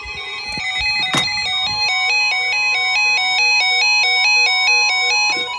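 Electronic alert alarm from a weather alert receiver: a rapid melody of beeps stepping back and forth between a few pitches, sounding for an Emergency Alert System severe thunderstorm warning. A couple of clicks come in the first second.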